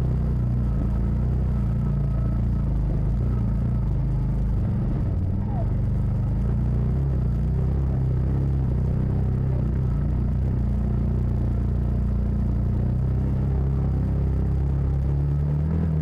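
Side-by-side UTV's engine running steadily as it crawls along a rocky dirt trail, a low drone heard from inside the cab.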